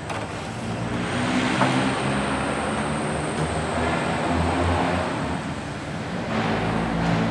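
A motor vehicle's engine running, a steady low hum that swells about a second in and eases briefly near the end, with a single sharp click about one and a half seconds in.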